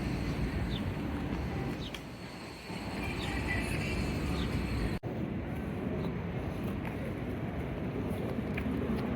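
Steady outdoor city street noise, mostly the low rumble of passing traffic, with a brief dropout about five seconds in where the recording cuts.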